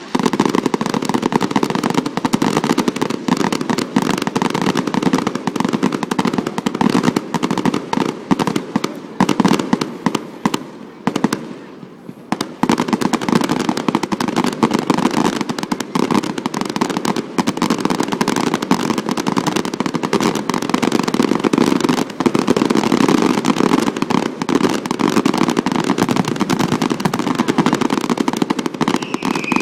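Fireworks display: a dense, continuous barrage of rapid bangs and crackles, thinning briefly about eleven seconds in before building up again.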